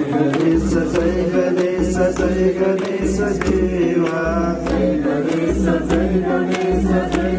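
Group of voices singing a devotional aarti bhajan together in a chant-like melody, with sharp, evenly spaced strikes keeping the beat.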